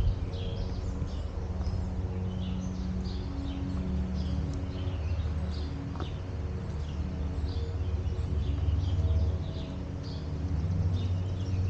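Small birds chirping in short, repeated calls, over a steady low hum.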